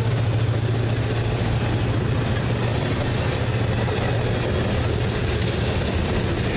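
Freight train's covered hoppers rolling past close by: a steady rumble and rattle of wheels on the rails over a low steady drone.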